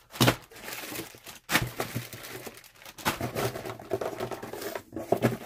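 Clear plastic packaging bags crinkling and rustling as bagged nylon gear pouches are handled and set down in a pile, with a few sharp knocks.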